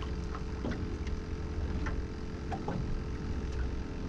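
Wind rumbling on the microphone and water noise around a small jon boat, under a steady low hum, with a few faint clicks.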